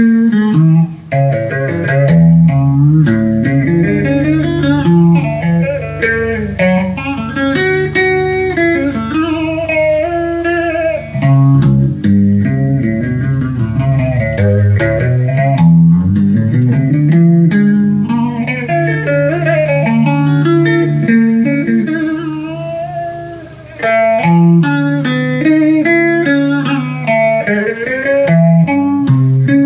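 Solo electric guitar playing a Vietnamese vọng cổ melody in the dây xề mode, with notes that slide and bend in pitch over low bass notes. There is a brief lull about three quarters of the way through.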